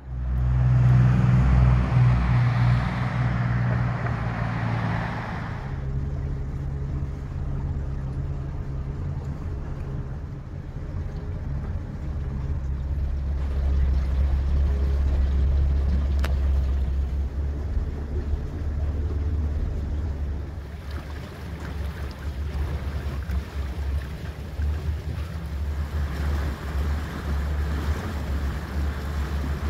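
Boat motor running steadily underway, a low drone. A rushing hiss of wind and water lies over it for the first few seconds.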